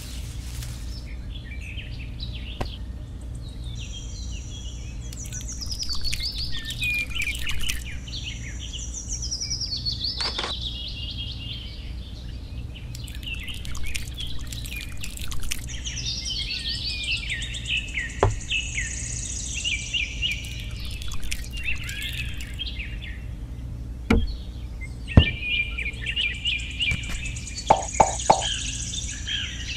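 Birds chirping and singing in quick falling whistled phrases over a steady low hum, with a few sharp clicks in the second half.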